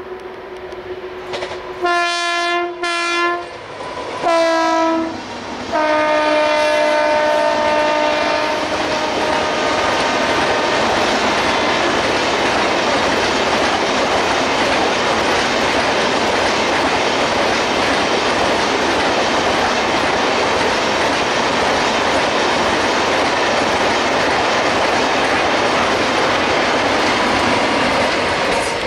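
WAP-7 electric locomotive sounding its horn: two short blasts about two seconds in, another shortly after, then a long blast at a lower pitch as the locomotive goes by. Then the steady rush and clickety-clack of the LHB coaches of the Rajdhani Express passing at speed while the train accelerates.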